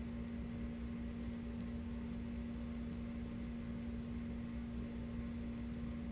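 Refrigerator running with a steady, unbroken hum at one pitch over a low rumble, a refrigerator that is on its last leg.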